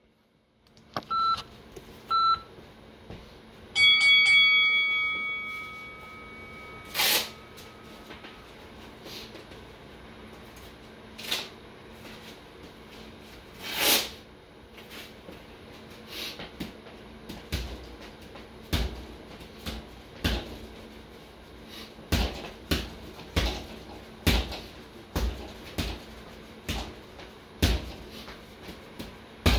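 Two short beeps, then a bell-like electronic tone rings out about four seconds in and fades over a few seconds. After a few scattered knocks, gloved punches start hitting a double-end bag about halfway through, a little more than one hit a second, each a sharp slap with a low thud.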